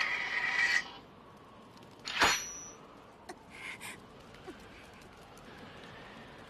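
Anime sword sound effects: a ringing metallic blade tone that ends just under a second in, then one sharp metallic clank about two seconds in, followed by a few faint clicks and quiet.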